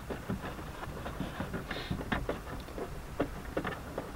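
Irregular small clicks and scrapes of a wing nut being turned by hand off the tail light housing inside a car trunk, with rustling of the trunk carpet.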